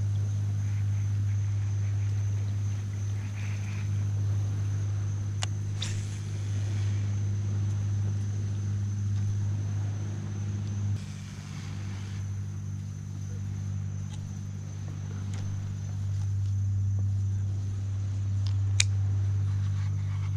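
A steady low motor-like hum that drops slightly about eleven seconds in, with a faint steady high whine above it and a few sharp clicks.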